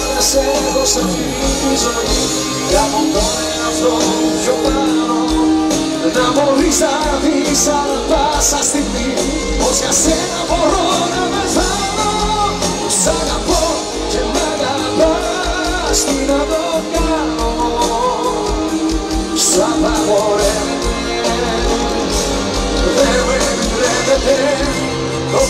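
Live pop band playing through a concert sound system, with drums, bass and a sung melody over it.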